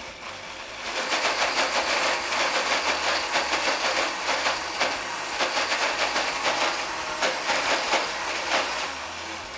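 Countertop blender running, puréeing a thick, creamy tofu and spinach filling; the motor comes up to speed about a second in and winds down near the end.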